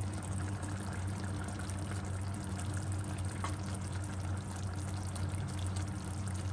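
Thick curry simmering in a nonstick pan on a gas stove, with wet scooping as a spoon lifts curry out of the pan, over a steady low hum.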